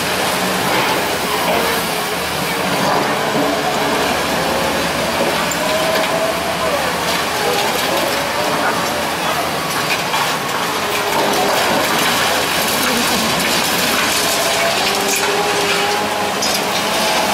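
Hydraulic excavators working a pile of broken concrete: diesel engines and hydraulics running, with a whine that wavers up and down in pitch and the scrape and clatter of rubble in the buckets.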